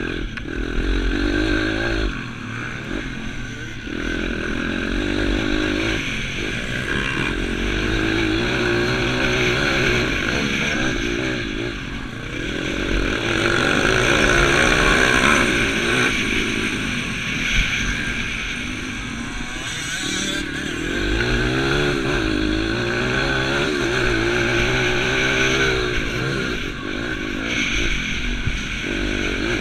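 A 155cc pitbike engine racing on a dirt track, repeatedly revving up and easing off through the corners, with wind rush over it.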